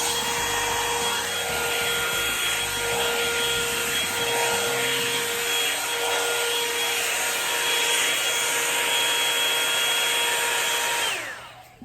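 Revlon One-Step hair dryer brush running: a steady rush of blown air with a constant motor whine. Near the end it is switched off and the whine falls away as the fan spins down.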